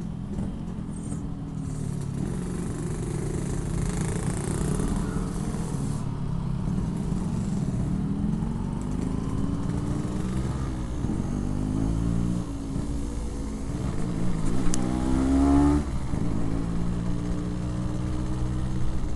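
Yamaha RX-King 135cc single-cylinder two-stroke engine with a Packing Power PK1 aftermarket exhaust, ridden at low speed. Its pitch rises and falls several times with the throttle, and the loudest rise, about three-quarters of the way through, cuts off sharply.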